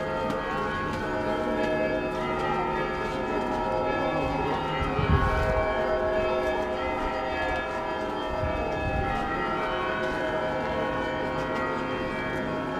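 Russian Orthodox church bells ringing, many bell tones sounding together and hanging on, with a brief low thump about five seconds in.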